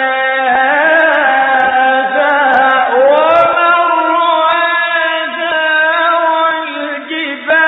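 A man chanting the Quran in the melodic mujawwad style, holding long ornamented notes. About three seconds in, his voice slides upward into a new sustained phrase. The voice dips briefly near the end and comes straight back in.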